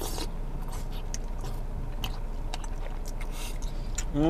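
Someone chewing and biting a mouthful of tteokbokki with meat, with scattered small clicks over a steady low background hum.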